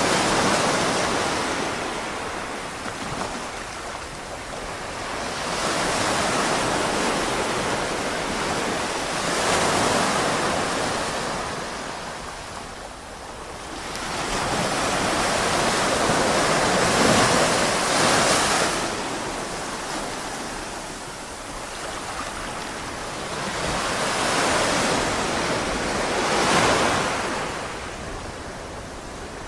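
Surf washing onto a beach, the sound of the waves swelling and fading in slow surges several seconds apart.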